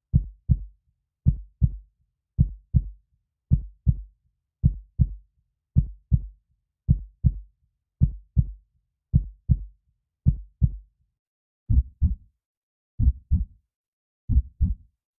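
Heartbeat sound effect: a steady lub-dub, each beat a pair of low thuds, a little slower than one beat a second. About three-quarters of the way in it changes to a slightly slower beat with the two thuds closer together.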